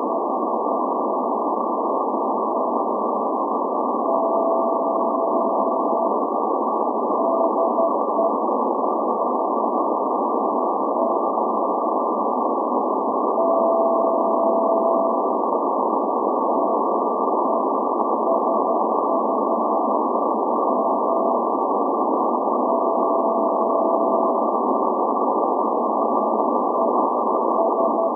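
Morse code from the SVO maritime coast station on 8424 kHz shortwave, a keyed tone of about 700 Hz sending the station's call letters as its channel marker. It sounds through steady static hiss, narrowed by the receiver's CW filter. A tone of about two seconds is followed by a run of shorter dots and dashes, and the pattern repeats three times.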